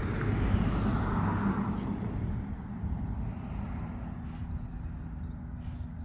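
A car passing on the street, its noise swelling in the first second or two and then fading, over a steady low rumble.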